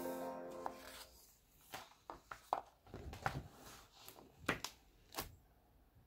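Background music dies away in the first second. Then the pages of a hardcover picture book are turned and the book is closed and turned over, making a series of sharp paper flicks and rustles.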